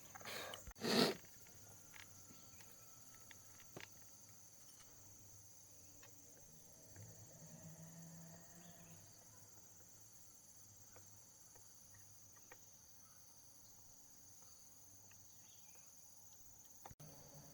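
Quiet background with a steady high-pitched drone of insects such as crickets. There is a short, loud noisy burst about a second in and a few faint clicks.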